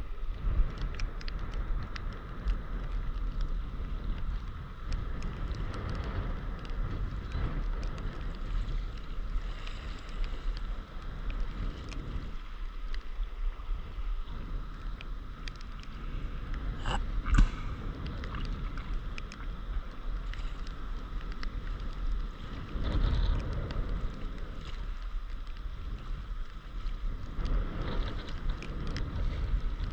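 Wind rumbling over the microphone of an action camera riding at the sea surface, with water sloshing and splashing around the board and scattered small ticks of drops. A single sharper knock sounds a little past halfway.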